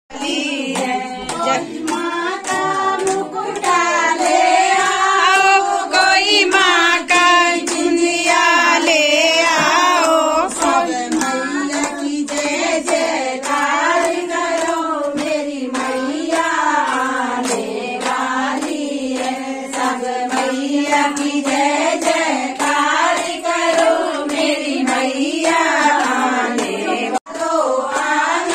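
A group of voices singing a devotional song to rhythmic hand-clapping. The singing breaks off for a moment near the end.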